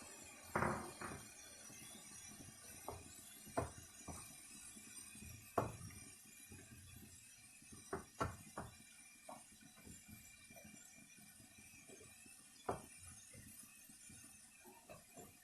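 Scattered clinks and knocks of a utensil against a cooking pan and glass kitchen containers, a dozen or so irregular taps over a faint steady hiss.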